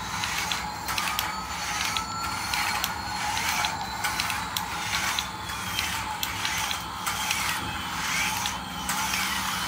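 Toy Airbus A380's geared wheel drive whirring with rapid, irregular clicking as it rolls and turns, under a faint electronic tone that slowly rises and falls.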